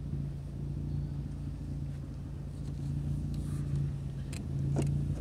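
Car engine idling with a steady low hum, and a couple of short clicks near the end.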